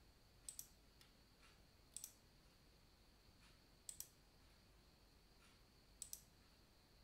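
Computer mouse clicking four times, each a quick pair of clicks, a second or two apart, over a faint steady high whine.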